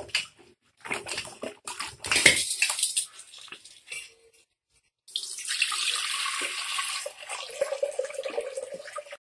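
Raw water chestnuts being swished and rubbed by hand in water in a steel bowl, with irregular splashing, then from about five seconds in a steady pour of the wash water from the bowl into a steel pot, which cuts off suddenly near the end.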